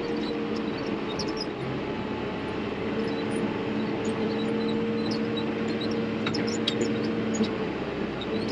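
John Deere diesel tractor engine running steadily while travelling on the road, with a few light rattles about six to seven seconds in and its note changing near the end.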